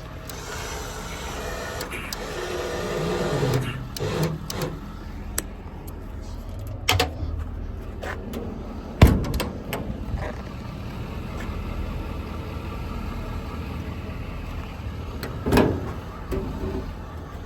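Truck engine running steadily, with a wavering mechanical whine early on and several sharp metal knocks and clunks, the loudest about nine seconds in.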